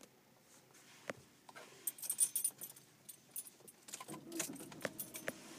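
Car keys jingling on their ring as a hand handles the key in the ignition, with scattered light clicks and knocks. The jingling comes in two spells, about two seconds in and again around four to five seconds.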